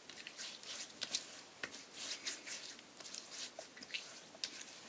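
Hands slapping and rubbing aftershave onto a freshly shaved face: a quiet run of irregular soft pats and brushing rubs.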